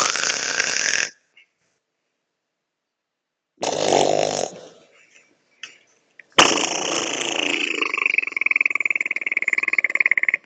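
A person making strange noises with their voice: a short one at the start, another about three and a half seconds in, and a long one from about six seconds in that turns into a fast rattle near the end.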